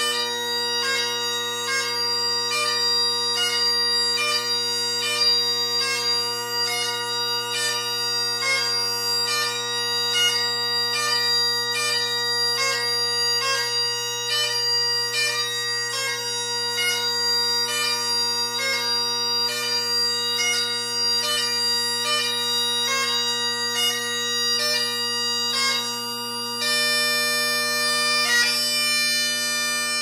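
Great Highland bagpipe playing the doubling variation of a piobaireachd: steady drones under the chanter's melody, which moves in a regular pulse of about two embellished notes a second, with a longer held high note near the end. The drones hold a pleasant sound but are not quite fully locked in tune, which the piper puts at about 99% of the way there.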